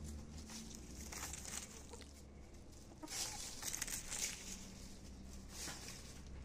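Lohmann Brown hen clucking as she forages, with bursts of rustling and scratching among the leaves and soil, loudest around the middle.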